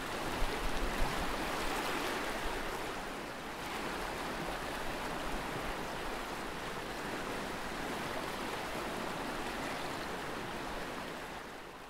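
Rushing white water: the steady, churning rush of river rapids, fading near the end.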